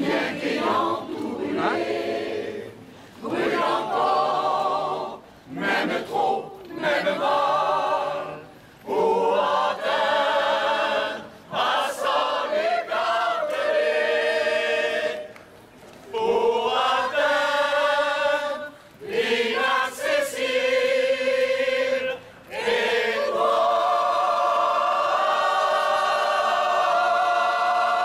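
Mixed amateur choir of men and women singing unaccompanied, in phrases broken by short pauses for breath, ending on one long held chord.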